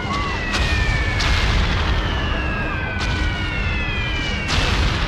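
Battle sound effects of an artillery barrage: a continuous low rumble with four sharp blasts, and long whistles slowly falling in pitch like incoming shells.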